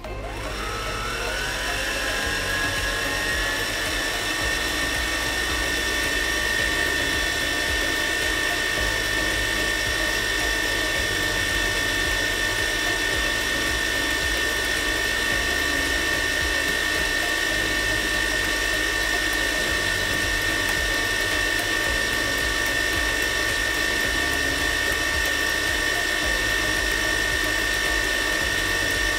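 Electric kitchen mixer switched on and running: its motor whine rises over the first few seconds as it spins up, then holds at a steady high pitch.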